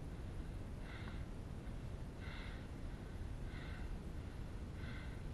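A person breathing hard and fast close to the microphone: short, even breaths about every 1.3 seconds, over a steady low rumble.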